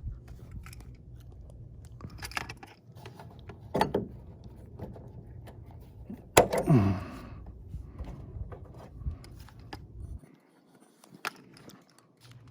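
Quick-release steering wheel being fitted onto its wall mount: clicks and metallic clinks of handling, with one loud clank about six seconds in followed by a short tone falling in pitch.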